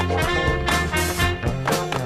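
Instrumental break in a song: a band playing with a steady beat, no vocals.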